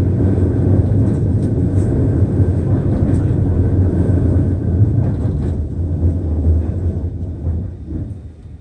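Nankai Airport Line train interior: loud, steady low rumble of the wheels on the rails, with faint clicks, fading away over the last second or two as the train slows on its approach to the station.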